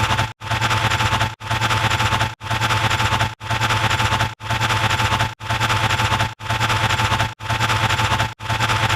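A harsh, noisy, distorted sound effect clip played over and over, about once a second, each repeat cut off by a short break: the effect that goes with each step of the count.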